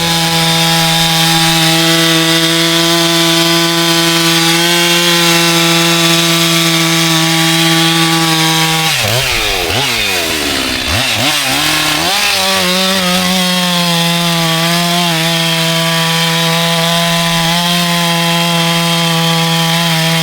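Two-stroke chainsaw running at high revs, sawing through lake ice to cut a spearing hole. Its steady whine drops and swings up and down for about three seconds midway as the revs change, then holds steady again.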